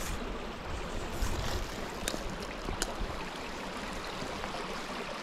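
Small, shallow mountain creek running over rocks: a steady rush and babble of water. A few sharp clicks stand out about two and three seconds in.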